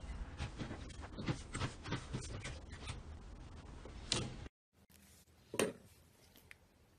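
Slime being worked by hand, spread with a spatula and pressed with fingertips: a run of small sticky clicks and squelches, with a louder pop about four seconds in. After a sudden cut it goes much quieter, with a single squish a little later.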